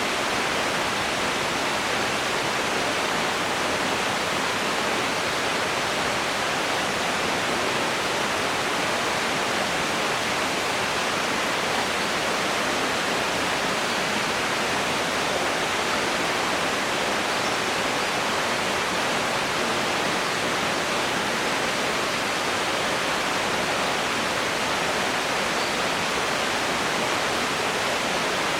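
Waterfall pouring into a canyon: a steady, even rush of falling water that does not change.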